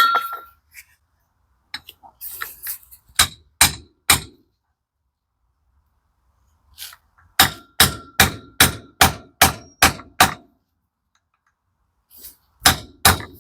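Hammer blows on steel gearbox parts, each with a short ringing clang: one at the start, four quick blows about three seconds in, a run of about eight blows at roughly three a second from about seven seconds in, and two more near the end.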